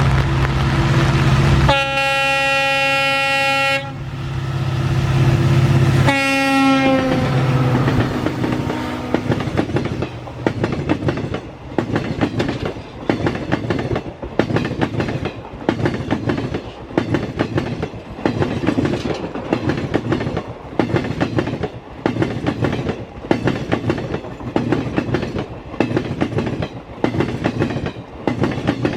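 An EMD WDP4D diesel locomotive passes with its engine running and sounds its horn twice, a long blast and then a shorter one that drops in pitch as it goes by. The passenger coaches follow, their wheels clattering over the rail joints about once a second.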